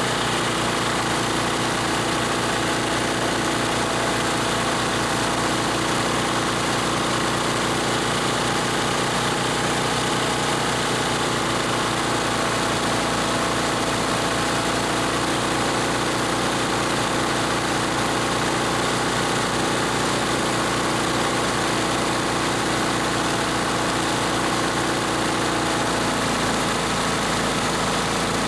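Harbor Freight air compressor pump running steadily with a fast, even beat, pumping a tank up to about 80 psi. Its tone shifts slightly in the last couple of seconds.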